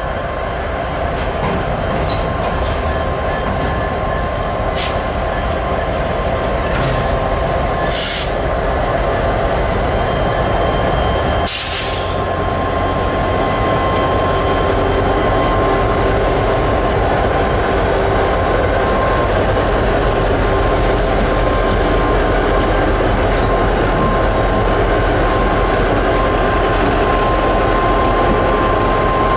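Union Pacific diesel-electric locomotives rolling slowly past close by, engines running with a low rumble under a steady high whine from the wheels. Three sharp clanks come at about 5, 8 and 12 seconds in.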